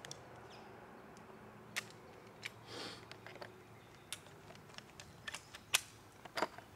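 Faint, irregular metallic clicks and clacks as .45-70 cartridges are pushed one by one through the loading gate of a Marlin lever-action rifle and handled at its receiver, about a dozen in all, with a short rattle about three seconds in.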